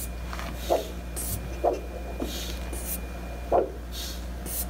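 Handheld Doppler ultrasound on the radial artery giving a short whoosh with each heartbeat, about once a second, over a steady hum from the unit. Short high hisses come in between as the cuff's hand bulb is squeezed. The pulse is still coming through, so the cuff has not yet reached limb occlusion pressure.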